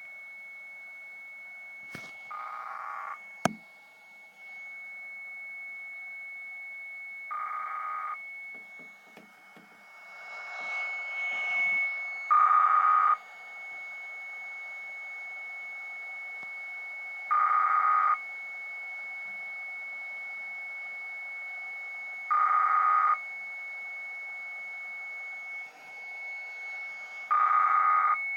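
Radio scanner on 458.550 MHz narrowband FM receiving a strange continuous signal: a steady high tone over a hiss, broken by a short buzzy burst about every five seconds. A single sharp click comes near the start.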